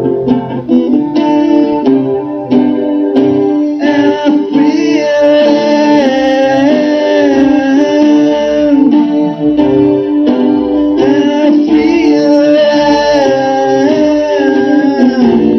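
Live music: a guitar strummed in chords, with a voice singing long held notes over it from about four seconds in.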